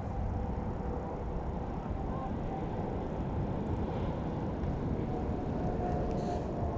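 A steady low rumble of wind buffeting the microphone, with no clear rhythm, and a few faint thin tones in the background.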